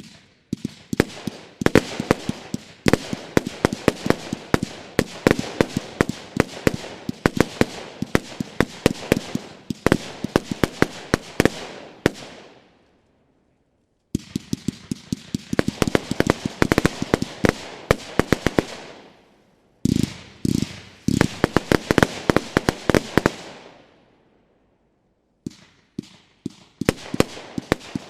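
St8ment Colorado 25 mm, 144-shot consumer firework battery firing: rapid runs of sharp launch and burst reports, several a second. The firing is broken by three short pauses, the longest about a second and a half, about twelve seconds in.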